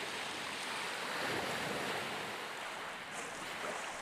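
Sea waves and surf washing in a steady rush of noise.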